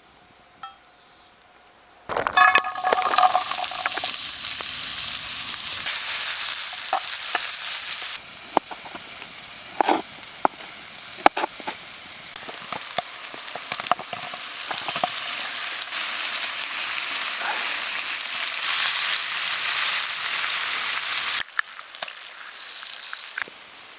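Food frying over a campfire: a steady sizzling hiss with scattered sharp pops and crackles. It starts suddenly about two seconds in, gets quieter partway through, and cuts off a couple of seconds before the end.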